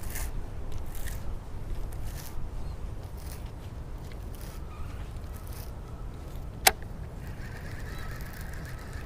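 Steady wind rumble on the microphone, broken by one sharp click about two-thirds of the way in. Faint honking of geese comes in near the end.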